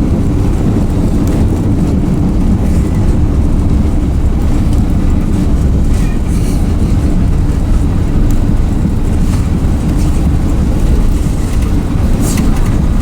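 Cabin noise inside an Airbus A380 with Rolls-Royce Trent 900 engines: a steady low rumble with a few brief knocks and rattles, the clearest about twelve seconds in.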